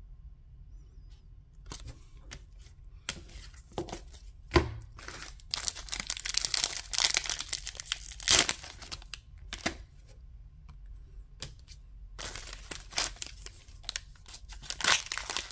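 Foil wrapper of a 2023 Panini Illusions football card pack being crinkled and torn open, in spells of crackling and tearing, the loudest about eight seconds in. Light clicks and taps from handling the cards come first.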